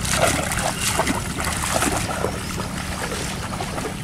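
Water splashing and sloshing as a person wades barefoot through a shallow pond, in irregular splashes with each step.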